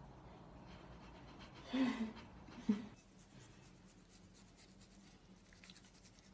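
Toothbrush bristles scrubbing a cat's teeth, a faint, fast scratchy brushing from about three seconds in. Before it, two short loud cries about two and nearly three seconds in.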